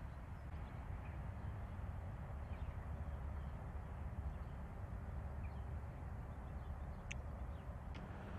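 Outdoor ambience: a steady low rumble of wind on the microphone, with a few faint, scattered bird chirps and two short, sharp calls near the end.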